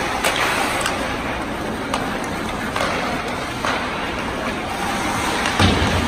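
Ice hockey play in an arena: a steady wash of skates on ice and rink noise, broken by sharp clacks of sticks and puck about once a second and a heavier thump near the end.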